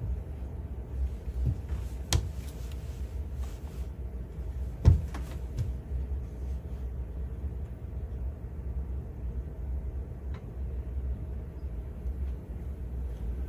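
Steady low rumble with a few sharp knocks and clicks; the loudest knock comes about five seconds in.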